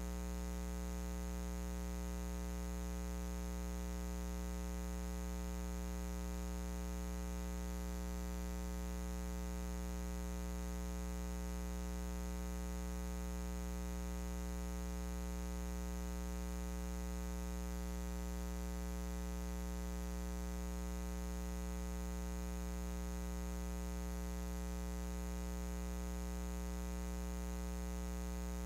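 Steady electrical mains hum with many overtones over a faint hiss, unchanging throughout.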